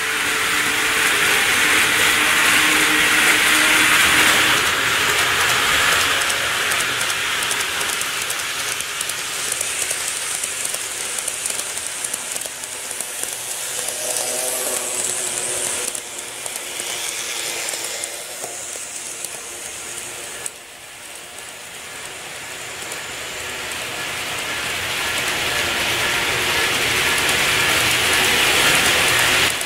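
N-gauge model electric trains running on the layout's track: a steady whir and rattle of wheels and motors. It swells as a train passes close, drops off suddenly about two-thirds of the way through, and builds again near the end as another train approaches.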